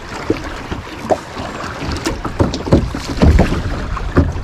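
Kayak on moving river water: water splashing and sloshing around the hull, with irregular knocks and low bumps, the heaviest about three seconds in.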